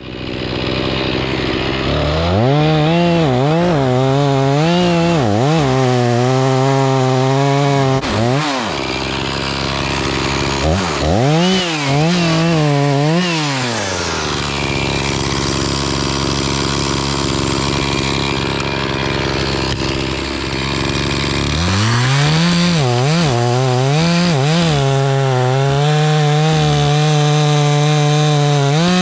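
Chainsaw cutting a chunk out of a maple trunk: the engine revs high and its pitch repeatedly dips and recovers as the chain bites into the wood. Midway it drops back to a lower, steadier run for several seconds, then revs up and cuts again.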